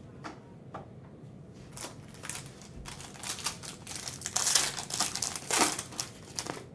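Clear plastic card sleeve crinkling as a trading card is handled and slid into it. Scattered crackles thicken into a dense run of crinkling in the second half.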